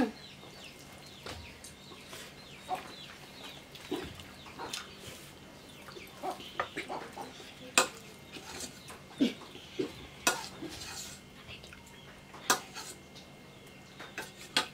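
Steel spoons clinking against stainless-steel serving bowls and plates, a scatter of sharp clinks, with chickens clucking in the background.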